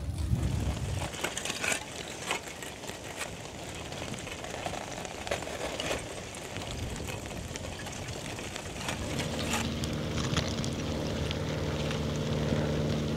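Footsteps on rough ground, a step about every two-thirds of a second, over a light outdoor hiss. About nine seconds in, a steady motor hum with several tones joins.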